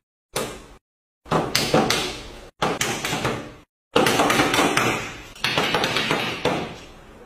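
A run of about five sharp hits, each starting suddenly and dying away over a second or so, with dead silence between some of them.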